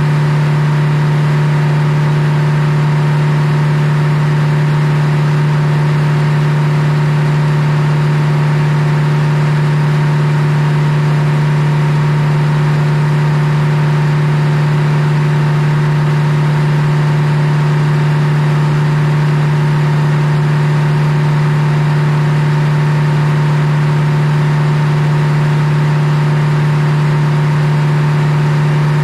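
Belt-driven circular sawmill running: a loud, steady machine hum that holds unchanged throughout.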